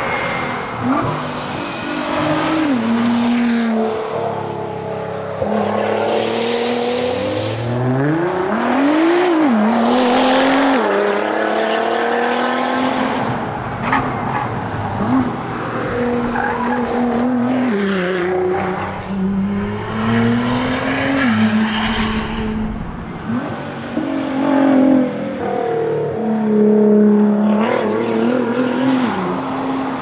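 Nissan R35 GT-R's twin-turbo 3.8-litre V6 under hard acceleration, its note climbing and then dropping again and again as it shifts gear and lifts for bends.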